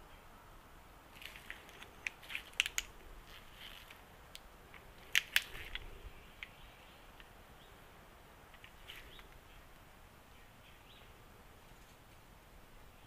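Scattered sharp clicks and light taps of metal hand tools being handled, with two louder clicks about five seconds in, as a torque wrench is being set to 24 newton metres.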